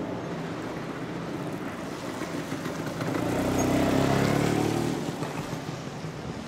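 A motor vehicle passes close by, swelling about three seconds in and fading away two seconds later, over steady street noise.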